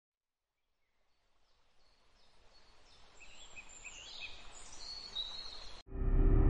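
Outdoor nature ambience fading in from silence: a soft hiss with small birds chirping in short rising calls, growing louder. Near the end it cuts off abruptly and loud ambient music with a steady low tone takes over.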